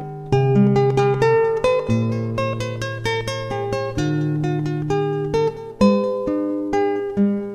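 Instrumental music: plucked guitar notes in a picking pattern over held low bass notes.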